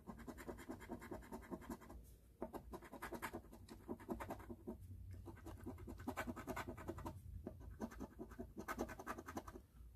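Scratch-off lottery ticket having its silver coating scraped away in rapid scratching strokes. The strokes come in four runs with brief pauses between them.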